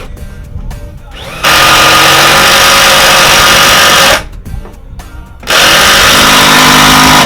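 Power drill driving self-drilling screws through wooden battens into a van's thin sheet-metal wall, running in two long steady bursts of about three and two seconds that start and stop abruptly.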